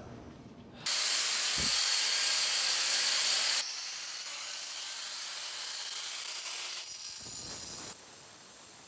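Angle grinder cutting into a concrete slab, finishing the corners of the circular-saw cuts: a harsh, even grinding hiss. It starts about a second in, is loudest for the first few seconds, then drops abruptly to a quieter level, and drops again near the end.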